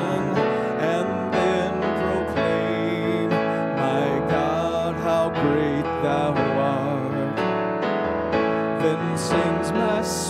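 A man singing a song to his own keyboard accompaniment, played with a piano sound.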